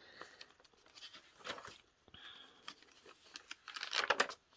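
Paper pages of a handmade junk journal being turned and handled: soft rustling and crinkling with small clicks, and a louder cluster of rustling near the end as a page is turned.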